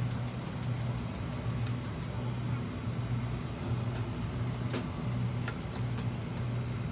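Gas stove burner igniter clicking rapidly, about six ticks a second for two seconds, as the burner is lit. A steady low hum runs underneath, and a couple of light knocks come near the end.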